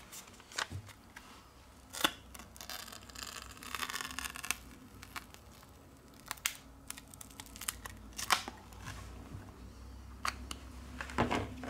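Adhesive crackling and peeling as the glued glass back cover of a Huawei P Smart Z is pulled away from the frame, with scattered small clicks and taps of the cover and plastic opening card. The longest crackle comes about three seconds in.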